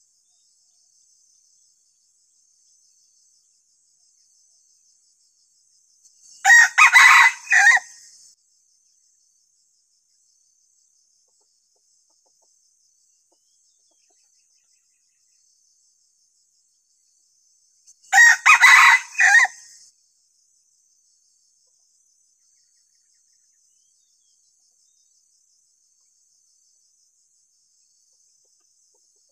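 A young decoy red junglefowl rooster (ayam pikat) crowing twice, about twelve seconds apart, each crow a short, broken call of about two seconds. A faint, steady, high insect trill runs underneath.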